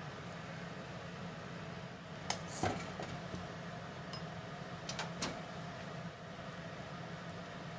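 Stainless-steel frying pan clinking against the gas hob's grate, a pair of metallic clicks about two seconds in with a brief ring and another pair about five seconds in, over a steady low hum.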